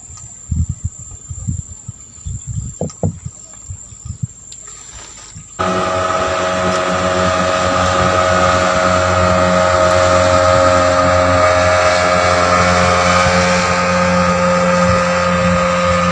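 A few low knocks and bumps, then about five and a half seconds in a small boat's engine comes in abruptly at full level and runs steadily at constant speed.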